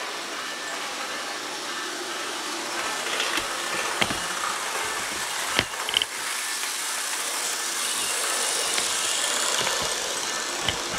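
HO scale model train running, a steady mechanical whir and hiss with a few sharp clicks.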